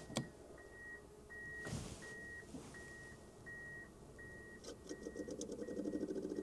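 Diesel heater's controller beeping steadily, short high beeps about one and a half times a second, while it shows error 03. A couple of clicks come at the start, and near the end a low, fast pulsing hum starts up.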